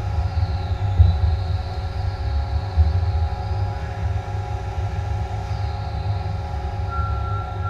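Industrial twin ram baler running: its hydraulic power unit gives a steady hum over a low rumble, with a few faint knocks. A higher whine joins near the end.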